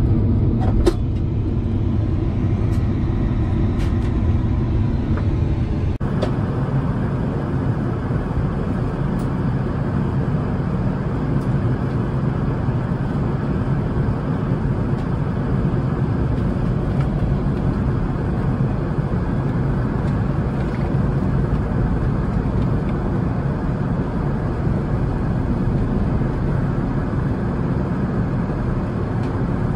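Steady cabin noise of an Airbus A380 in cruise: the low, even rush of airflow and engines heard from inside the cabin. A few sharp clicks sound in the first seconds, and about six seconds in the noise changes suddenly and becomes hissier.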